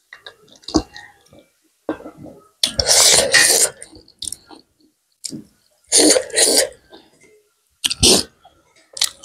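A person coughing and clearing her throat in loud bursts while eating: a long cough about three seconds in, two more around six seconds, and a short sharp one near the end. Soft chewing and mouth clicks come between them.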